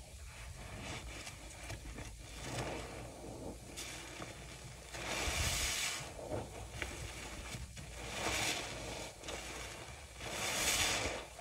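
Soapy bath sponge squeezed in thick cleaner suds by a rubber-gloved hand: wet squelching with fizzing, crackling foam, swelling into three louder squeezes about five, eight and ten and a half seconds in.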